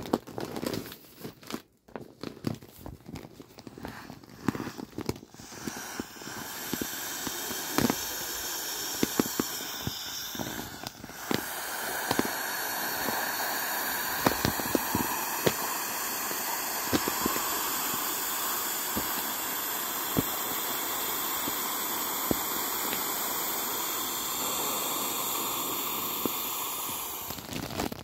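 Air hissing out through the open valve of a 2003 Intex Wetset inflatable vinyl race car as it is deflated, over crinkling of the glossy vinyl being handled. The hiss starts a few seconds in, dips briefly, then runs steadily until it stops just before the end.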